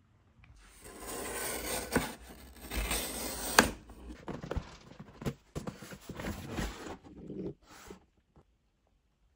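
Packaging being handled and slid about during unboxing: scraping and rubbing with several sharp knocks, stopping about eight seconds in.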